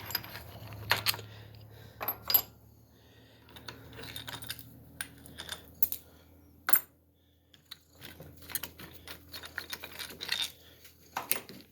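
Irregular sharp metallic clicks and clinks of steel bolts and parts of a Massey Ferguson hydraulic gear pump being handled and set down as it is taken apart, a few louder knocks among lighter taps.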